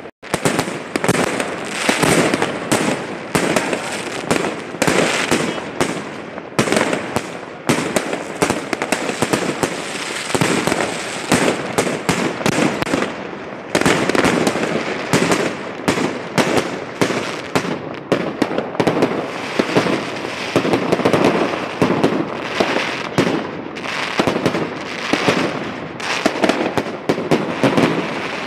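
Aerial fireworks going off in rapid succession: a dense, unbroken barrage of bangs and crackling bursts.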